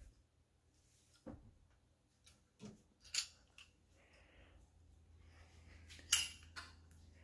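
A person walking while handling a phone: a few scattered scuffs and clicks, the sharpest about three seconds and six seconds in, over a faint low hum.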